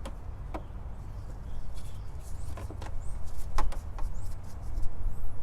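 Scattered clicks and small knocks of hands working a battery cable and zip ties in an engine bay, over a low, uneven rumble that grows louder after about a second and a half. A few faint, short bird chirps.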